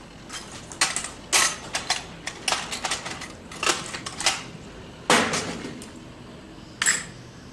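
Irregular sharp clicks and knocks of small hard objects being handled and rummaged through in a container, about a dozen over several seconds, with a brief high squeak near the end.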